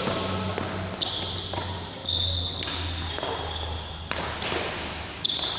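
A child's footsteps and landings on an indoor badminton court during a footwork drill: sharp thumps about a second apart, with high-pitched tones coming and going between them, over a steady low hum.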